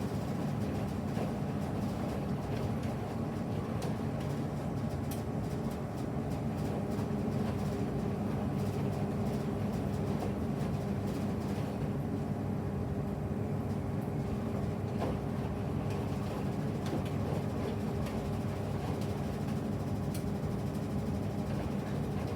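A SANYO front-loading drum washing machine, about 1990 vintage, running its wash (agitation) stage: a steady motor hum over the rumble of the turning drum, with scattered faint clicks.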